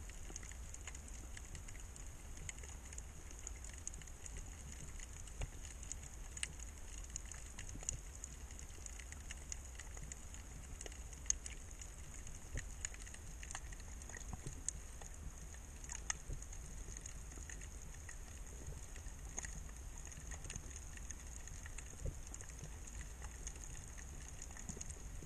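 Underwater ambience heard through an action camera's waterproof housing: a steady low, muffled rumble with frequent small clicks and crackles scattered throughout.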